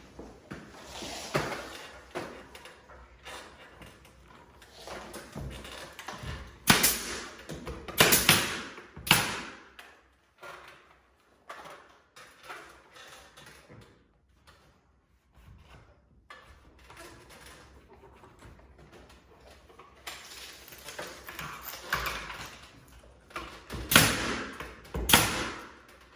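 Work noise while crown molding is being fitted: a few sharp knocks and thumps, two bunched together about a third of the way in and two more near the end, between stretches of softer rustling and handling noise.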